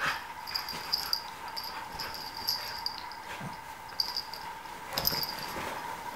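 A cat and a Miniature Australian Shepherd dog play-wrestling: scuffling with a few sharp knocks and repeated brief high jingles, over a steady faint high hum.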